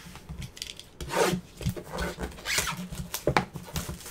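Gloved hands handling trading card boxes and packs on a table: rubbing and rustling of cardboard and wrappers, with a series of short, soft knocks.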